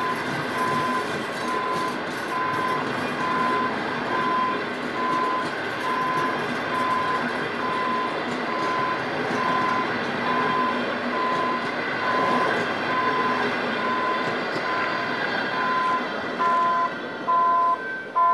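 Passenger coaches rolling past on the rails with a steady clatter and rumble. A level-crossing warning beeps about once a second throughout, and in the last two seconds louder two-tone beeps join in.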